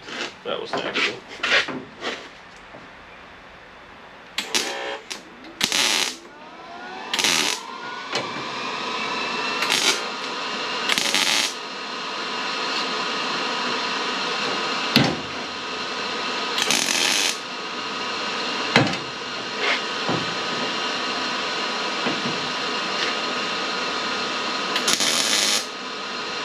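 Hammer knocks on the steel sheet metal of a car body panel, a few sharp blows spread apart. Under them a motor spins up with a rising whine about seven seconds in and then runs steadily. Short bursts of hiss come and go.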